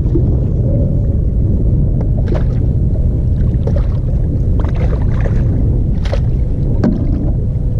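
Steady low rumbling noise, with a few short clicks and knocks over it, about two seconds in and again between four and a half and seven seconds in.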